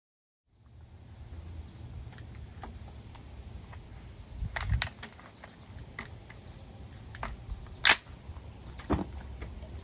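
A single gunshot from a 5.56 AR-15 pistol fitted with a flash can, sharp and by far the loudest sound, a little after the middle, followed about a second later by a fainter, duller report. A few light clicks come before it, over a steady low rumble.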